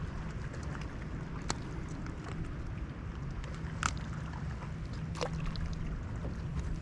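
Steady low rumble of wind and choppy water around a bass boat on a windy lake, with a few short sharp ticks about a second and a half, four and five seconds in.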